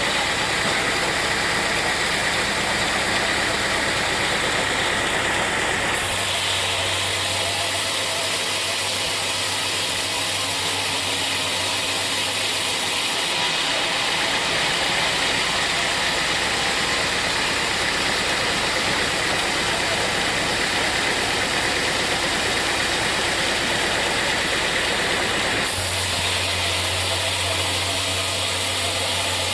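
Sawmill machinery running steadily with an engine-like drone and hiss. The tone changes abruptly three times.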